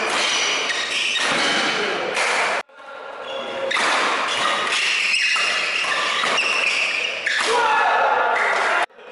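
Spectators shouting and cheering in an echoing sports hall during badminton rallies, with thuds of racket strikes and players' footwork on the court. The sound cuts off abruptly about two and a half seconds in and again near the end, fading back in each time.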